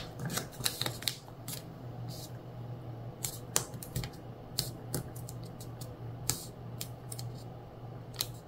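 A sheet of origami paper being handled and folded: a scatter of small crisp crackles and taps as the layers are spread, turned over and creased flat under the fingertips. A low steady hum sits underneath.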